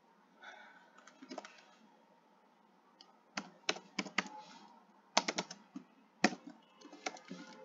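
Typing on a computer keyboard: short runs of keystrokes with pauses between them, the keys coming thicker in the second half.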